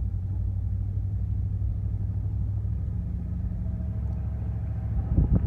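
Low, steady rumble of a vehicle's engine and tyres, heard from inside the vehicle as it drives slowly along a paved road. Near the end, wind starts buffeting the microphone.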